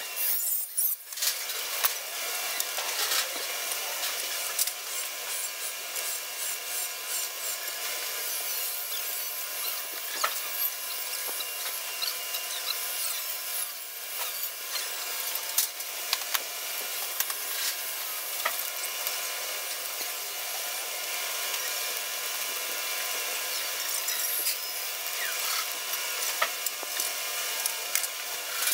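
Metalworking noise from work on galvanized sheet metal: a steady scraping, rubbing hiss with many small clicks and knocks scattered through it.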